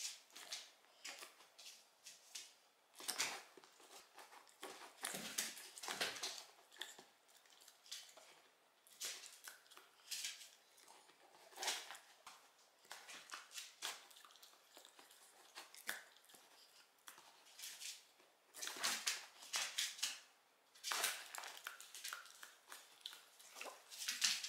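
Small Shiba Inu's claws and paws clicking and scrabbling on a wooden floor as she rears up on her hind legs and drops back down. The clicks come in irregular flurries with short pauses between them.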